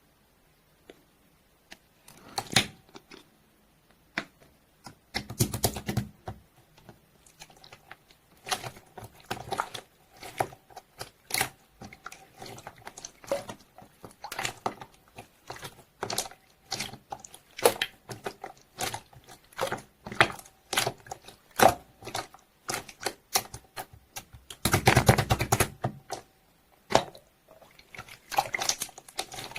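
Slime being squished and pressed by hand, giving irregular wet clicks and pops of trapped air. About five seconds in and again near the end comes a longer run of rapid crackling pops.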